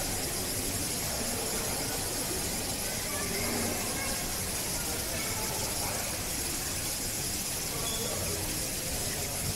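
Indistinct voices of people talking in the background over a steady hiss, with no single sound standing out.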